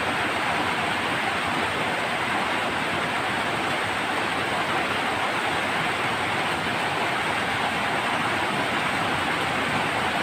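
Heavy rain falling steadily, an even hiss heard from inside a hut.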